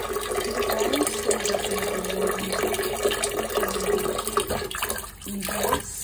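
Kitchen tap running in a steady stream into a rice cooker's inner pot of raw rice, splashing onto the rice and rinse water as the rice is washed.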